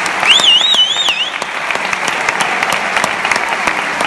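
Audience applauding steadily in a concert hall at the end of a band piece. About a third of a second in, a high wavering whistle from someone in the crowd rises and falls a few times for about a second.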